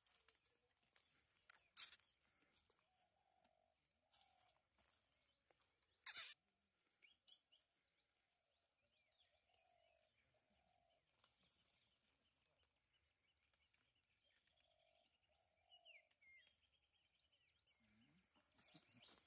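Quiet forest ambience with faint bird calls and chirps, broken by two short sharp cracks about four seconds apart.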